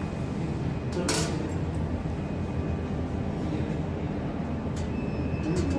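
Steady low machine hum, with one sharp click about a second in as two small welded metal washers are set down on a hard surface.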